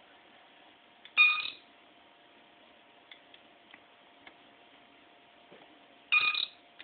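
Star Trek: TNG LCARS computer beep chirps played through PC speakers: a short electronic chirp about a second in and another near the end, with a few faint clicks between them over a steady faint hum.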